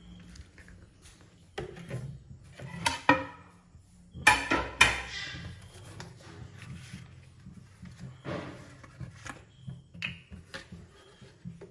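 Intermittent household clatter and knocks, such as dishes or utensils being handled, with two louder short sounds about four and five seconds in.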